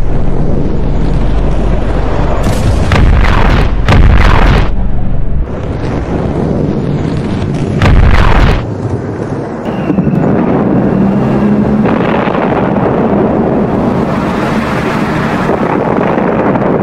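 Sound-effect booms and rumbling of a meteor impact: a continuous rumble broken by several sudden blasts, the loudest about four and eight seconds in, settling into a steady dense rumble for the last seven seconds.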